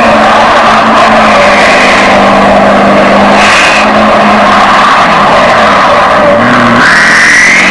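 Chevrolet Silverado High Country's Duramax diesel engine held at high revs while the rear tires spin and squeal in a smoky burnout, loud and unbroken, with a rising whine near the end.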